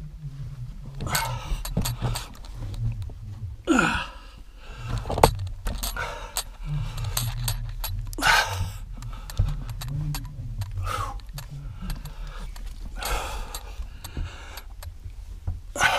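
Loose rock rubble shifting and clattering underfoot as someone clambers over it in a tunnel, with many small clicks and knocks of stone on stone. Heavy breaths come every few seconds.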